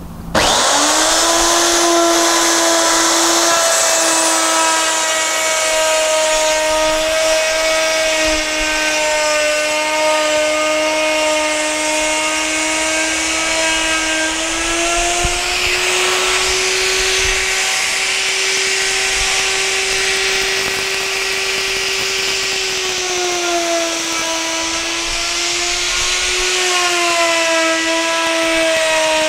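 Handheld electric router switched on at the very start and spinning up in a fraction of a second, then running with a steady high whine while its bead bit cuts a decorative line along a wooden board. The pitch shifts slightly up and down as it cuts, dipping twice near the end.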